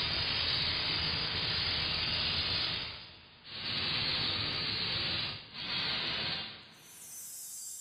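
Sound effect of showering sparks hissing, in three long bursts, then a fainter, higher hiss near the end.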